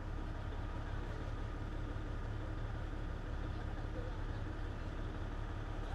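Steady low engine rumble of a vehicle idling, with a faint steady whine above it.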